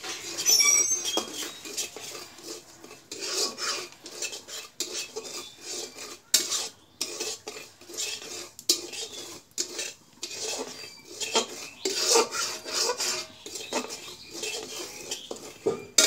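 Metal spatula scraping and stirring dry semolina around a black iron karahi, an uneven run of scrapes and clinks against the pan as the semolina is dry-roasted.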